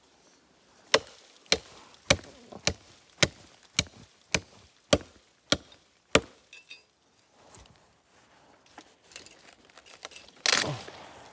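A blade chopping into wood: about ten sharp strikes at a steady pace of a little under two a second. Near the end comes a louder rustling crash.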